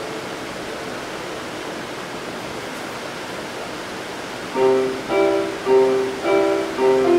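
Background music: a faint hiss for the first few seconds, then a plucked string instrument starts about four and a half seconds in, playing separate notes at roughly two a second.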